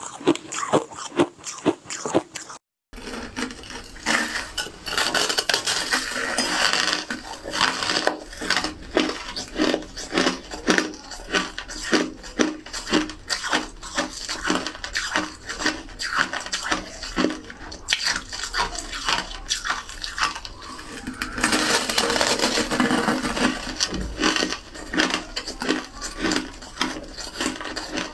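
Close-up crunching of teeth biting and chewing big chunks of white frost ice: many crisp, irregular crunches in quick succession, with a brief gap about three seconds in.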